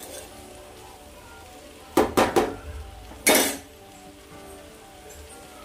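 Metal spatula clattering on a steel kadhai and stovetop: three quick knocks about two seconds in, then a longer clatter about a second later. Under it, the jackfruit curry sizzles faintly on a low flame.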